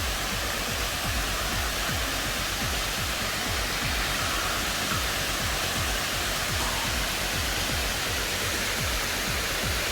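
Steady rush of water flowing over a low dam.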